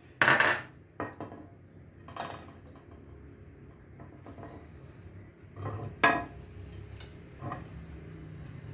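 Kitchen bowls and utensils knocking and clinking: a short scrape just after the start, then a few separate knocks, with the sharpest clink about six seconds in.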